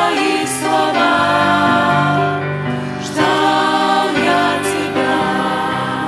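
Small mixed choir of adults and children singing a hymn together with piano accompaniment, in long held notes, a new phrase beginning about three seconds in.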